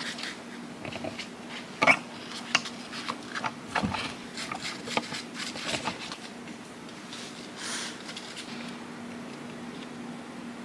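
Scattered light clicks and taps of things being handled on a workbench over a steady low hum, with a short hiss about eight seconds in.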